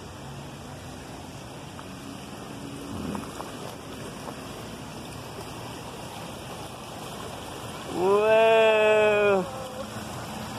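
Shallow river water rushing over rocks in a steady wash. About eight seconds in, a voice lets out one loud, long-held call lasting over a second.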